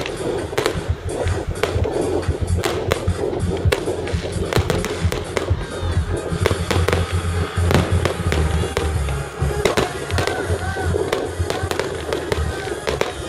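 Aerial fireworks shells bursting in quick, irregular succession, many sharp bangs and crackles, with music playing underneath.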